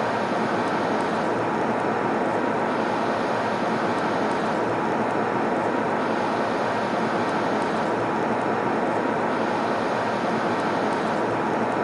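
Airliner cabin noise in flight: a steady, unbroken rush of engine and airflow noise, with a faint steady tone underneath.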